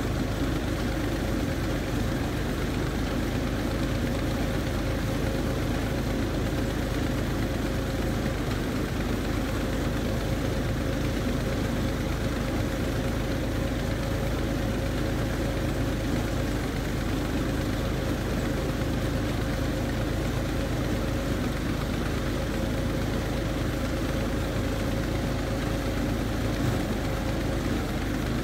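Engine of a water-well boring rig running steadily, with a constant hum through it. Muddy drilling water gushes from the rig's discharge pipe into the pit.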